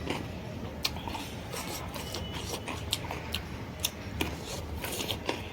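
Close-up eating sounds: chewing chicken liver and gizzard curry, with irregular sharp wet clicks and smacks of the mouth. A steady low hum runs underneath.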